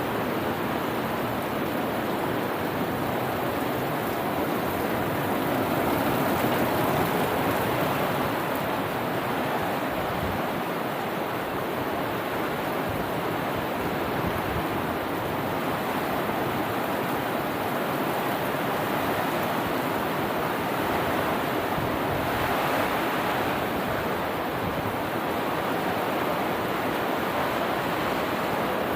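Heavy rainstorm with running floodwater: a steady, even rushing noise.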